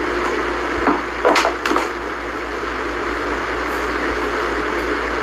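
Steady background hiss with a faint hum, broken by a few short knocks between one and two seconds in.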